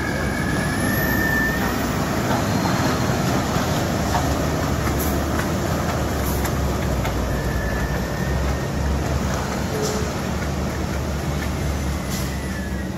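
Heavy diesel truck engine running steadily under load as a loaded tanker truck climbs a steep wet hairpin, with a wide hiss of tyres and spray on the wet road. It eases off slightly near the end as the truck pulls away up the bend.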